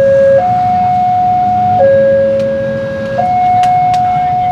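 Railway level-crossing warning alarm sounding a two-tone high-low signal, each tone held about a second and a half, warning that a train is approaching. A low traffic rumble runs underneath.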